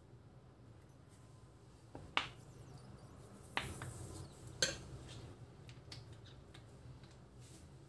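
Three sharp clinks of a metal spoon against a glass dish, with light handling noise between them.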